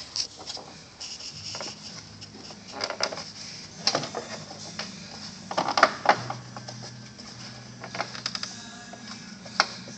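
Plastic intake ducting and air scoop being slid and pressed into place by hand, giving irregular clicks and knocks of hard plastic on plastic. The loudest come a little past the middle.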